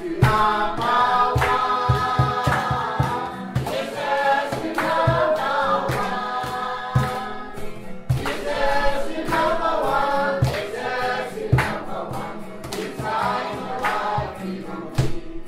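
A choir of many voices singing a gospel song together, over a steady percussive beat.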